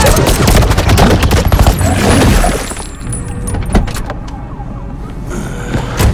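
Action-film fight sound effects: a dense burst of rapid gunfire and crashing impacts for about the first two and a half seconds, then quieter, with scattered knocks and one heavy thump near the end.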